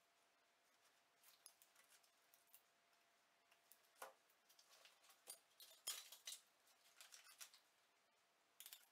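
Faint, scattered clicks and rustles of steel surgical instruments, hemostats and forceps, being handled by gloved hands over a paper drape. The clicks come thickest in the middle of the stretch.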